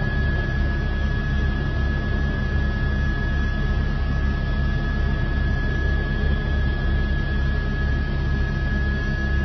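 Helicopter cabin noise picked up by the reporter's headset microphone: a steady rotor and engine drone with a low pulsing rumble and a thin, steady high whine over it.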